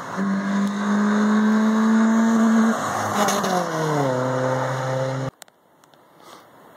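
Subaru Impreza 2.5RS's 2.5-litre flat-four engine runs at steady high revs as the car comes by. Its pitch drops as it passes and pulls away. The sound cuts off abruptly about five seconds in, leaving only a faint background.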